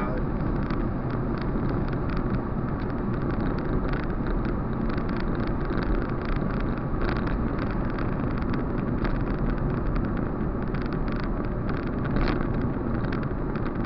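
Steady engine and tyre road noise inside a car's cabin at cruising speed, an even rumble heard through a windscreen-mounted camera's microphone.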